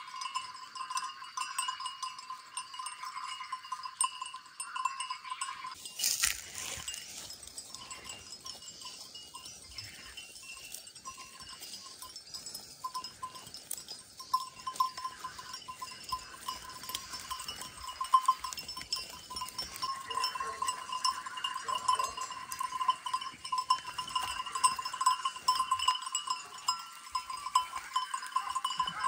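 Flock of sheep grazing, with occasional bleats.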